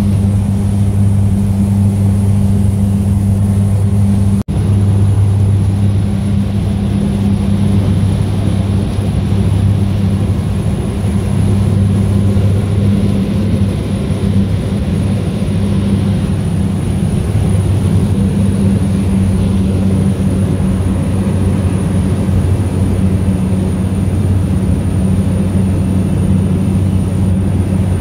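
Floatplane's propeller engine running at takeoff power, heard inside the cabin: a loud steady drone with a strong low hum, as the plane runs across the water and climbs away. The sound breaks off for an instant about four and a half seconds in.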